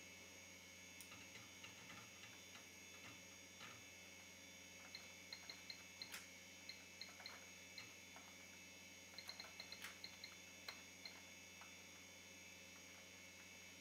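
Faint typing on a DEC workstation keyboard: two quick runs of about nine keystrokes each, every key giving a short high click, after a few scattered mouse clicks in the first seconds. A steady faint hum runs underneath.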